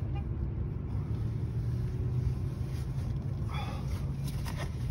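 Steady low engine rumble of an idling vehicle. Over it come a short grunt about three and a half seconds in and a few soft clicks and rustles as a fabric seat cover is pulled down over a rear seat back.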